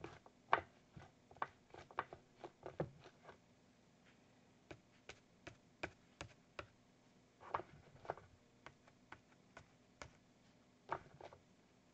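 Piece of foam packaging material used as a sponge, dabbing acrylic paint onto a palette and a small canvas panel: faint, irregular light taps, in quick runs for the first few seconds, then in short scattered clusters.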